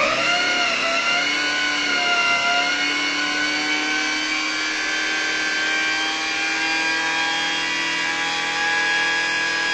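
Small electric mini chopper running on thick, lactose-free spreadable cream cheese with no liquid added: a loud, steady motor whine that switches on abruptly, its pitch wavering slightly in the first couple of seconds as the blades take the load, then holding even.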